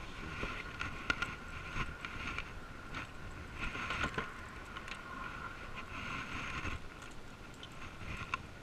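Rustling and knocking as bags and gear are handled at a car's open rear door, with a few sharp clicks, over a steady high hum.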